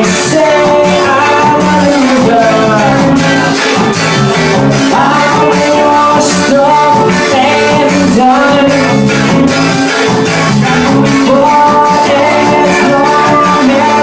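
A live ska band playing loud: a melody line held over the full band, with a steady beat of drum hits.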